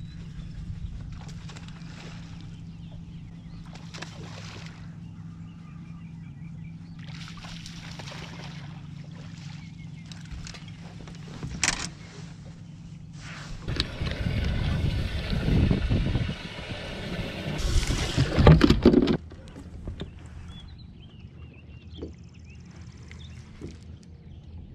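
Steady low hum of a bass boat's electric trolling motor, with a few sharp clicks and knocks. A little past the middle comes several seconds of loud water splashing and sloshing beside the boat, loudest just before it stops.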